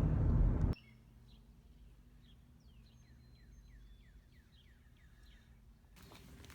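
Car road noise that cuts off suddenly under a second in, then faint outdoor birdsong: a quick series of short, downward-sliding chirps.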